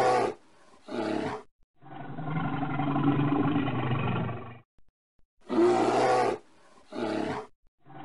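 Bear growls and roars in separate bouts: two short roars, then a longer, lower growl lasting about three seconds, then the same pair of short roars again near the end.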